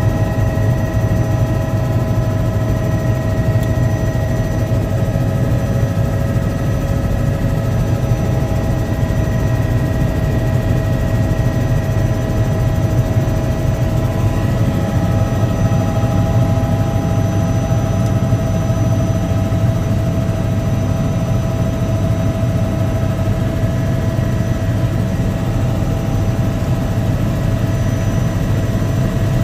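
Helicopter in flight, heard from inside the cabin: a steady low drone with a constant whine of several high tones above it.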